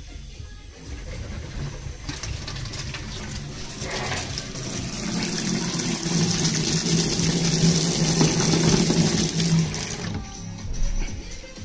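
Water running from a tap. It builds up over the first few seconds, is loudest about halfway with a steady low hum under it, and cuts off sharply near the end.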